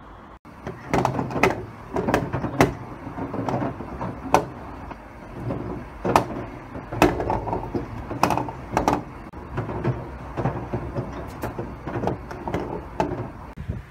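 Tricity Bendix WDR1040W washer-dryer drum tumbling bricks with jeans: irregular heavy knocks and bangs every half second to a second over the steady low hum of the running machine.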